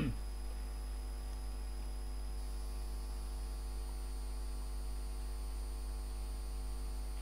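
Steady electrical mains hum with a faint high-pitched whine above it, unchanging throughout.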